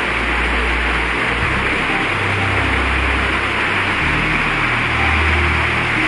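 Kapinovski waterfall's cascade pouring into its plunge pool: a steady rushing of falling water. Low notes of background music sound underneath.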